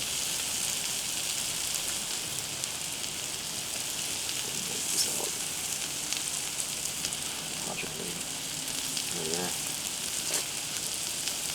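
Butter and cheese frying on a Blackstone flat-top griddle: a steady sizzling hiss, with a couple of sharp ticks about five and ten seconds in.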